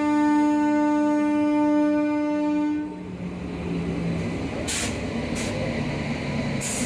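Train horn sounding one long steady blast that cuts off about three seconds in. It is followed by the train's rumble with three short hisses of air.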